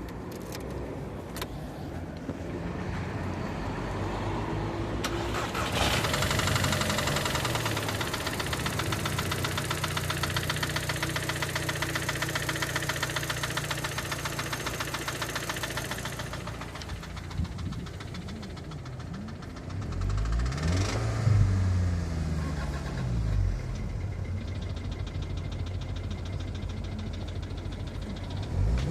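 Audi A3 2.0 TFSI turbocharged four-cylinder engine running with a rapid, regular metallic knock, a marble-like noise that is loudest for about ten seconds and then fades. Later the revs rise and fall. The knock comes with a misfire on cylinder 4; the owner fears lifters, the timing chain tensioner or a cam follower.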